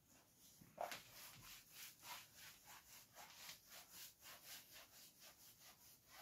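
Faint scratchy strokes of handwriting, a pen or marker moving quickly in short strokes, several a second, starting just under a second in.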